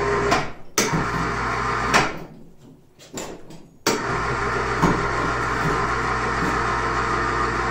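Electric hoist motor running as it lifts a lawn mower of about 100 pounds on a sling. It starts and stops several times in the first few seconds, then runs steadily from about four seconds in.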